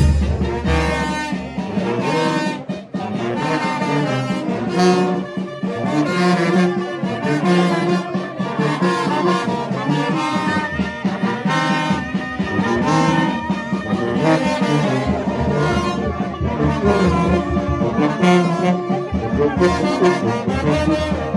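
Mexican brass band (banda) playing live: horns carry the tune over a steady drum beat.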